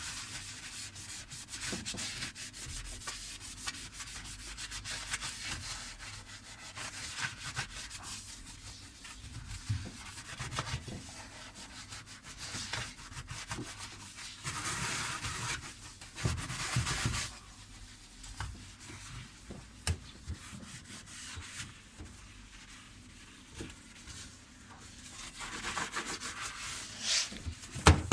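Scrubbing and wiping inside the bottom of a dishwasher by hand with detergent: uneven rubbing strokes that come in runs and pause.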